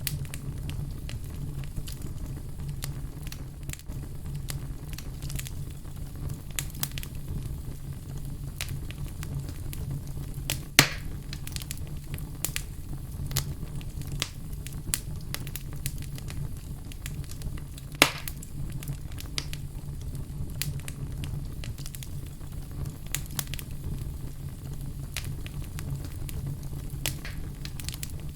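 Fire crackling in a fireplace: a dense run of small crackles and snaps over a steady low rumble, with two louder single pops, about 11 and 18 seconds in.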